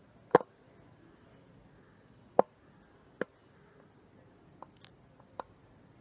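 A handful of sharp, separate clicks over a quiet background. The loudest comes just after the start, two more follow a couple of seconds apart, and fainter ones come near the end.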